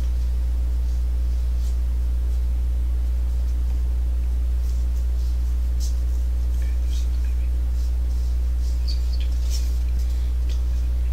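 A steady low hum, with a few faint light ticks over the second half.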